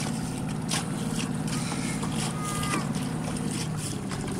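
A small boat under way: a steady low engine hum, with water splashing and slapping against the hull.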